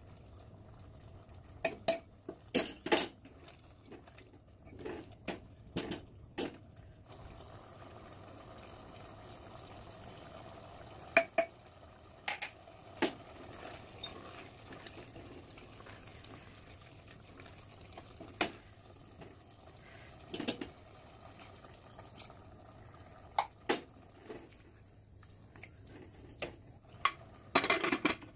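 A steel spoon and a spatula clinking and scraping against the metal pot of a pressure cooker as spice is tipped in and the potato and pointed gourd curry is stirred, with scattered sharp knocks. Near the end the pressure cooker lid goes on with a quick clatter of metal.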